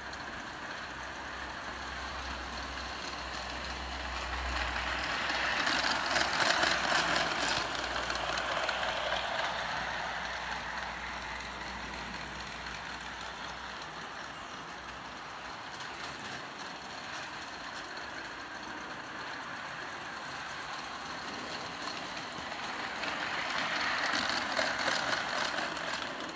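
LGB 0-6-6-0 Mallet G-scale model locomotive and three coaches running along garden railway track: a steady rumble of the electric motor and wheels on the rails. The sound swells twice as the train passes close by, about six seconds in and again near the end.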